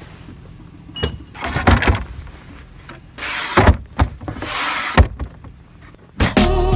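Several knocks and bumps with short rushing, rustling noises between them. Music starts near the end.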